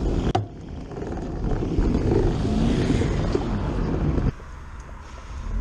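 Road traffic noise: a car going by over a loud low rumble, which drops abruptly to a quieter rumble about four seconds in.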